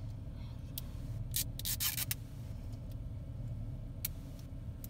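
Hands handling and picking at the plastic LOL Surprise ball and its wrapping: a few short rustles and scrapes, bunched around the middle, over a steady low hum.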